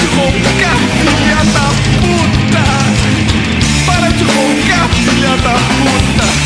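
Loud rock song in a stretch without lyrics: full band playing steadily, with short bending notes on top.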